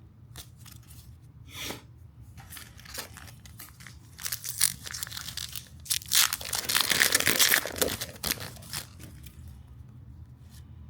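Foil wrapper of a trading card pack being torn open and crinkled, among light handling ticks; the tearing comes in two spells, about four seconds in and, loudest, from about six to eight seconds in.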